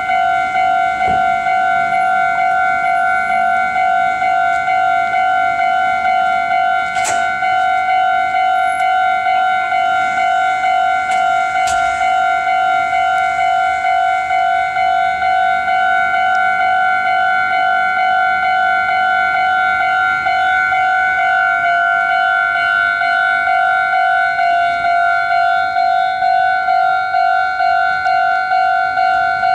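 Japanese level-crossing alarm bell at a Meitetsu crossing, ringing steadily at about two and a half strikes a second. Two sharp clicks sound partway through.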